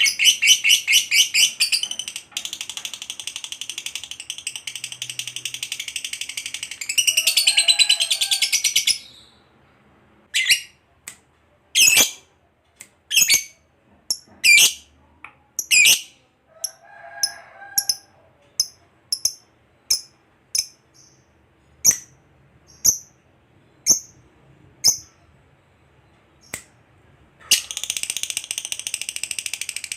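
Lovebird singing: a long, rapid, high chattering trill (ngekek), then a run of separate short, sharp chirps about once a second, with the fast chatter starting again near the end.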